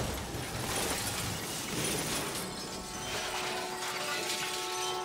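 Car crash aftermath: shattered glass and metal debris clattering and tinkling just after the impact. About three seconds in, a steady pitched tone comes in.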